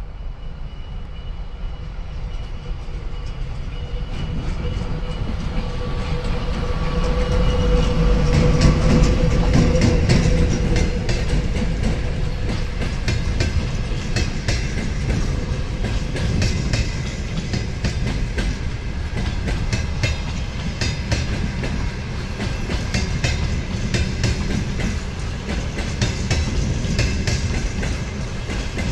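ChME3 shunting diesel locomotive approaching and passing, its diesel engine loudest about eight to ten seconds in. After it, the passenger coaches it is hauling roll by with a steady clickety-clack of wheels over the rail joints.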